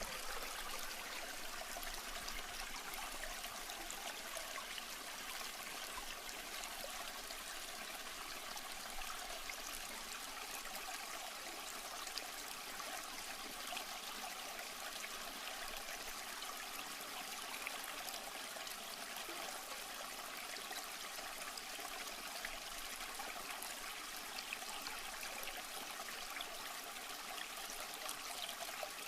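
Steady trickling water from an aquarium filter.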